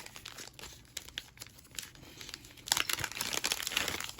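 Packaging crinkling and rustling as a quick release plate is taken out of it and handled, with scattered crackles at first and a louder, denser stretch of crinkling in the second half.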